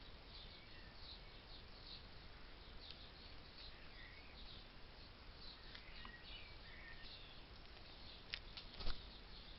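Faint small-bird chirps and short peeps, with two sharp taps near the end, the second the louder.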